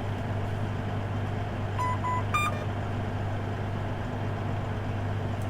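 Challenger MT965C tractor engine running steadily, with the auto-steer display beeping about two seconds in: two short beeps, then a higher one. The beeps are an alert while auto-steer engagement is being attempted.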